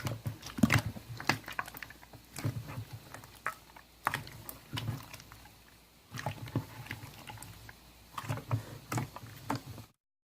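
Irregular soft taps and knocks, a few a second, that cut off to dead silence near the end.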